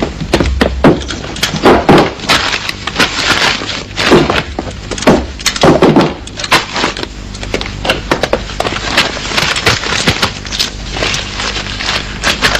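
Wooden crate being opened by hand: a run of wooden knocks and scrapes, with several heavier thumps in the first six seconds as the lid is worked loose and lifted, then lighter clicks and scraping as the packets inside are handled.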